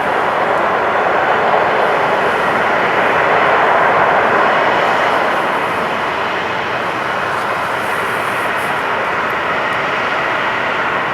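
Airliner's engines running loud and steady as the aircraft passes, the noise swelling to its loudest about four seconds in and then easing off a little.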